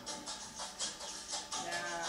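Background music with a steady, quick beat of light percussion; a voice starts near the end.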